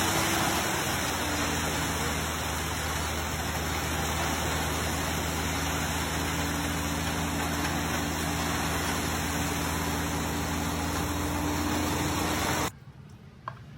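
Pressure washer running: a steady motor hum under the loud hiss of the water jet, cutting off suddenly near the end.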